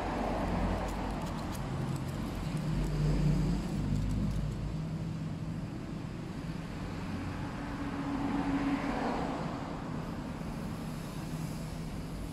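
Steady low rumble of background road traffic, its engine tones shifting as vehicles pass, with a few faint crinkles of aluminium foil being pulled off the nails in the first couple of seconds.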